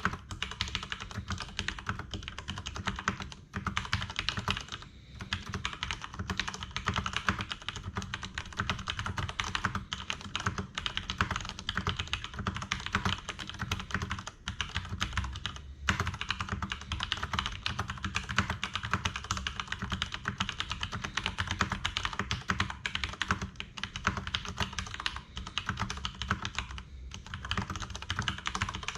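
Fast continuous typing on a Leopold FC750R PD mechanical keyboard with tactile Cherry MX Brown switches: a dense run of key clicks and clacks, with a couple of brief pauses.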